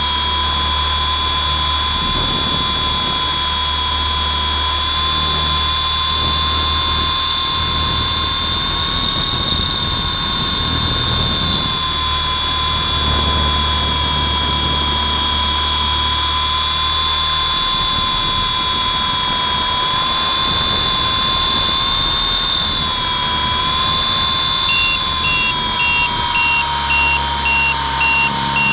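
WLToys V912 RC helicopter's electric motors and rotor, heard close up from its own onboard camera: a steady high whine that drifts slightly up and down with throttle. Near the end the sound starts to pulse in short regular beats, about one and a half a second.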